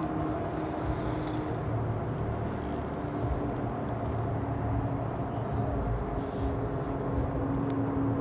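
Steady low rumble of distant city traffic, with a faint steady hum running through it.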